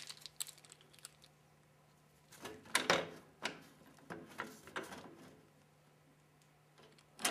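Scattered clicks and knocks of hands handling a cordless drill, a screw on its bit and a wooden board, a few about the first second and a denser run from about two and a half to five seconds in.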